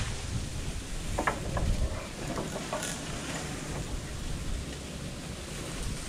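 Wind buffeting the microphone in an uneven low rumble, with a few faint knocks of lumber being handled about a second in and again near three seconds.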